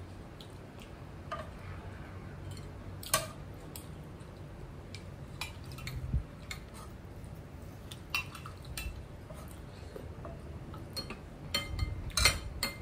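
Metal spoons, forks and a soup ladle clinking against ceramic bowls, plates and a pot while people eat. Scattered light clinks, a sharper one about three seconds in and a quick run of clinks near the end.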